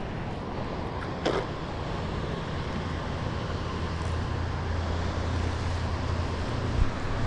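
Steady rush and rumble of dam outflow: water pouring from the spillway gates into turbulent tailwater, with the low rumble growing stronger partway through. One short, sharp sound stands out about a second in.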